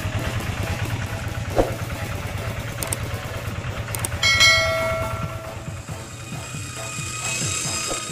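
Two-wheel hand tractor engine running with a fast, even low chugging. A brief high tone sounds a little over four seconds in.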